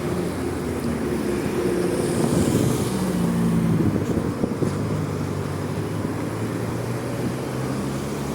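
Street traffic: road vehicles' engines running and passing over a steady rumble. Their engine notes shift in the first half, and a lower steady engine hum takes over from about halfway.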